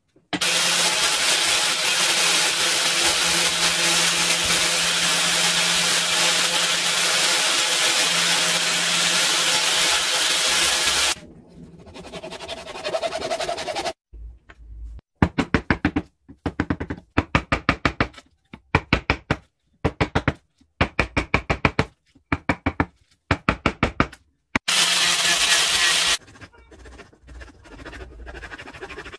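An electric angle grinder with a sanding disc runs steadily as it sands a small piece of wood, then cuts off suddenly after about eleven seconds. It is followed by runs of quick, evenly spaced back-and-forth hand strokes on the wood, and near the end the grinder runs again briefly.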